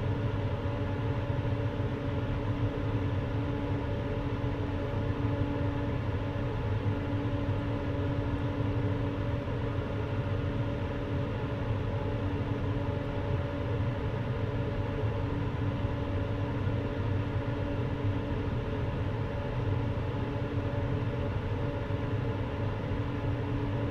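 Laminar flow cabinet's blower fan running steadily: an even rush of air with a constant hum.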